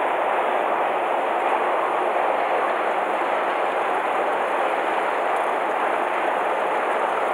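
Metro escalator running: a steady, even mechanical noise from the moving steps and drive.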